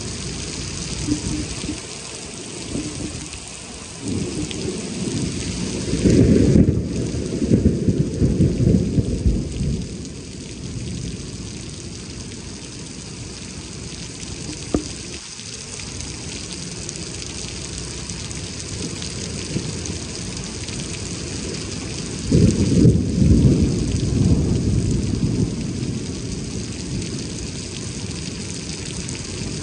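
Heavy rain pouring steadily, with low thunder rumbling twice for a few seconds each time, about six seconds in and again about twenty-two seconds in.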